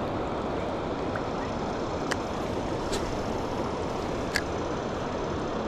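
Steady rush of river water, with three short sharp ticks in the middle.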